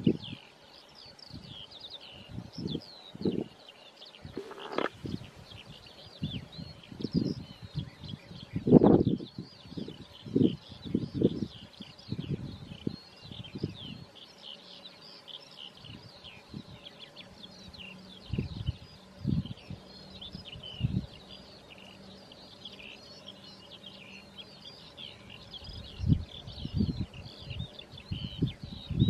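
A dense chorus of small songbirds chirping and singing without pause in open grassland, with scattered irregular low thuds that are the loudest sounds, the biggest about 5 and 9 seconds in.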